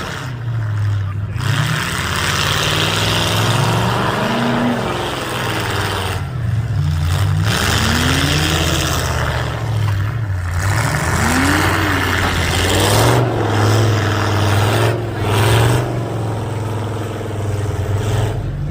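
Demolition derby cars' engines running, one revving up and down several times over the steady drone of the others.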